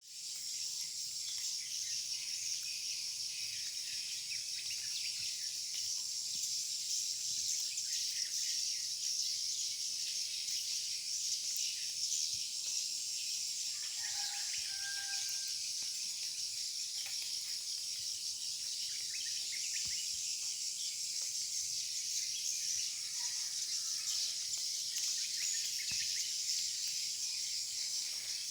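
A mass of edible-nest swiftlets chirping and clicking inside a swiftlet house, a dense, unbroken high twittering, heard with the house's lure-call playback switched off.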